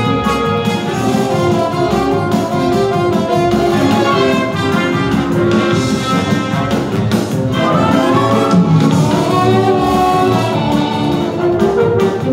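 Brassy, jazz-style show orchestra music for a dance number, driven by a steady beat.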